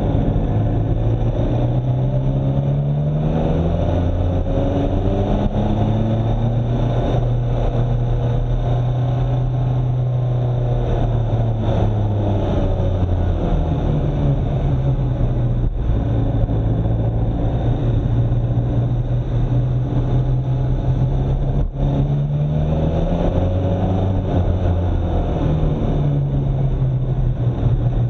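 Car engine running under way, its note rising and falling several times as the vehicle speeds up and slows, over steady road noise.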